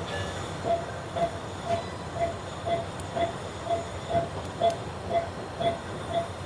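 Anaesthesia patient monitor beeping a short, even tone about twice a second, in time with the anaesthetised dog's pulse, over a steady background hiss.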